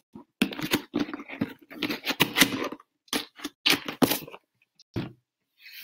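Packaging rustling and crinkling as items are handled and pulled from a shipping box, in irregular bursts that thin out in the second half.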